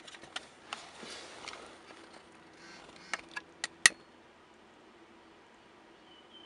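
Hands handling a car's ECU wiring harness and its plastic connector: rustling of the wires and several sharp plastic clicks, the loudest about four seconds in.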